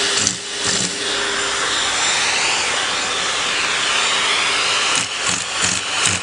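Vacuum cleaner running with a steady hiss of suction at the hose nozzle, which is pressed against a cat's fur. The tone wavers in the middle, and from about five seconds in there are irregular dull bumps.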